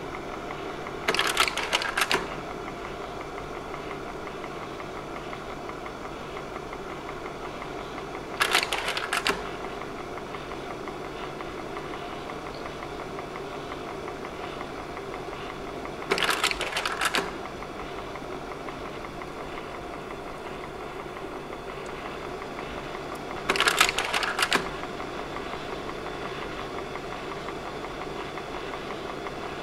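Slide projector running with a steady fan hum, its slide-change mechanism clattering for about a second four times, roughly every seven and a half seconds.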